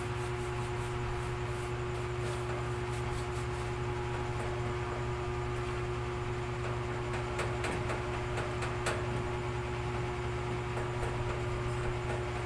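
Steady mechanical hum and hiss, like a running electric fan, with a few faint clicks about seven to nine seconds in.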